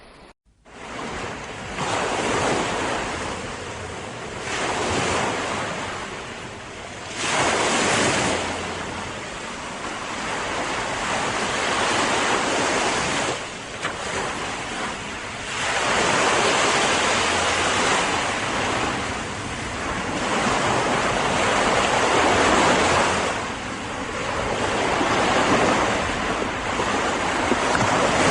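Sea surf, waves breaking and washing up one after another, swelling and ebbing every few seconds, with wind. It cuts in after a brief dropout right at the start.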